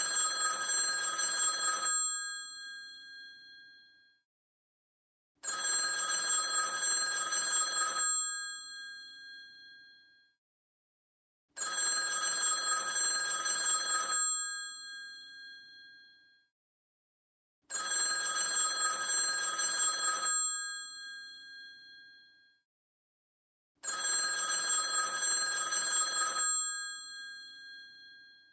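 Vintage telephone bell ringing: five rings of about two and a half seconds each, repeating roughly every six seconds with a short fading tail after each ring and silence between.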